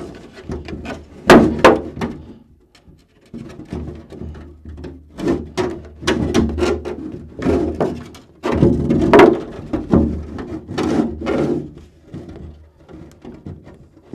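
Clear polycarbonate RC short course truck body, a JConcepts Illuzion Hi-Flow shell, flexed by hand. It crinkles and gives sharp cracks as the excess plastic snaps away along the score line, loudest twice about a second in and again past halfway.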